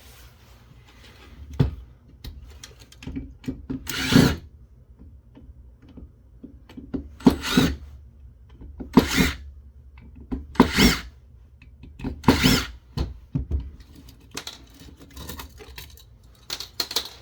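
A power screwdriver spinning out screws from the radio's metal chassis in about five short bursts, with small clicks and taps of metal parts between them.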